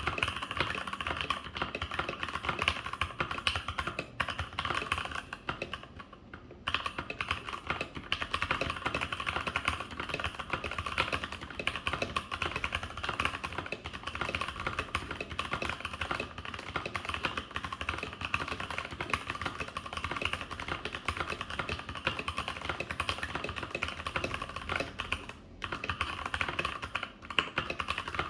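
Keychron K8 mechanical keyboard with Gateron Red linear switches being typed on quickly and continuously: a dense stream of key clacks, with a brief pause about six seconds in.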